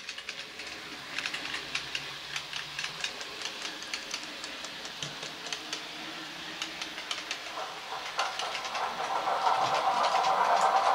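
Model railway sound: a DCC sound decoder playing a class 33's Sulzer diesel engine at idle through a small onboard speaker, with rapid clicking of a passing model train's wheels over the rail joints. From about eight seconds in a louder hissing hum builds up.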